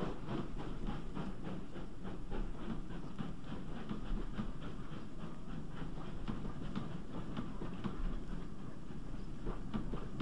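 GWR 'Castle' class 4-6-0 steam locomotive, a four-cylinder engine, slowly hauling a heavy express train, its exhaust beating in an even, steady rhythm.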